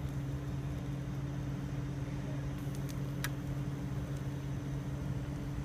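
Steady low mechanical hum of a running motor, with a couple of light clicks about three seconds in.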